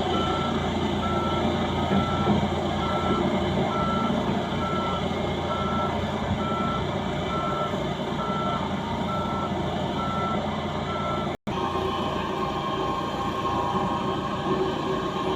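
Skid steer engine running under load with its reversing alarm beeping steadily, about two beeps a second. The beeping stops at a sudden break about three-quarters of the way through, and the engine keeps running with a steady hum.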